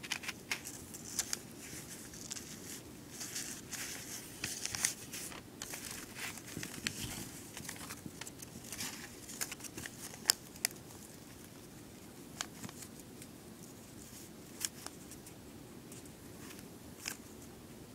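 A puppy scrabbling and rooting about on towels in a cardboard box: rustling and scratching with many sharp clicks, busy at first and sparser after about halfway.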